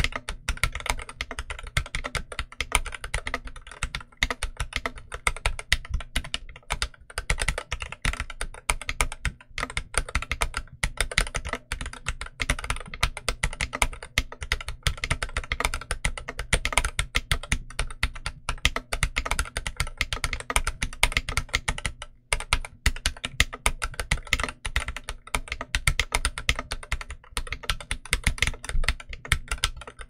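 Continuous typing on an Inland MK47 mechanical keyboard with Huano Red linear switches and OEM-profile keycaps: a dense, unbroken run of key presses with one brief pause about two-thirds of the way through.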